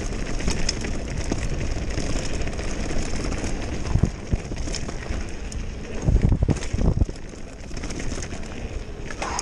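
Mountain bike descending a dirt trail at speed: tyres rumbling over the ground and the bike rattling with many sharp clicks, with wind buffeting the mounted camera's microphone. Heavy thumps come about four seconds in, and three more between six and seven seconds in, as the bike hits bumps.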